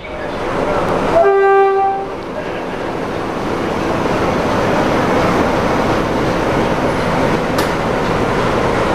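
A CFR class 60 diesel locomotive's horn sounds once, a short steady note about a second in. Then the Sulzer diesel and the coaches run with a steady noise that builds slowly as the train pulls away.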